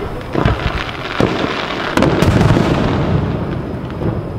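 Aerial firework shells launching and bursting overhead: a series of sharp bangs about a second apart, the loudest pair about two seconds in, each followed by a rumbling echo that slowly fades.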